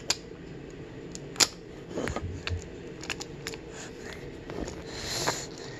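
Scattered light clicks and knocks of a wooden toy car being pushed over a wooden train track, with a short soft rustle about five seconds in.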